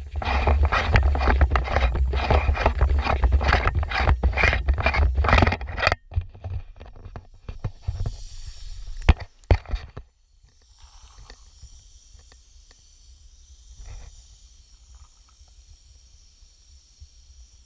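Loud scraping and rubbing right at a wearable action camera's microphone as a hand handles the camera, for about six seconds; then a few clicks and a sharp knock, and from about ten seconds in it falls quiet to a faint hiss with an odd tick.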